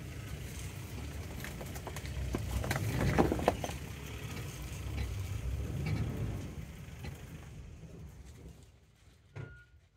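Safari game-drive vehicle's engine running at low speed, its low rumble fading away in the second half. A burst of crackles and clicks about three seconds in is the loudest part.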